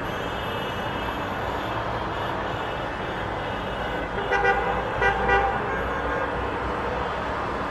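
Car horns honking in celebration: a few short blasts a little past the middle, over a steady din of street noise.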